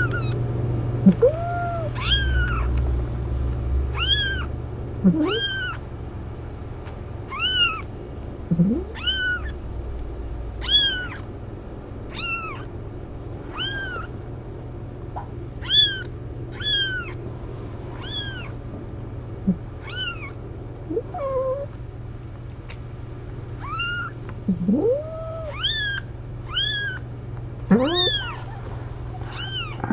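Newborn kitten mewing: short, high-pitched squeaks repeated about every second or two while it tries to latch on to nurse, with a few lower, longer calls in between, over a steady low hum.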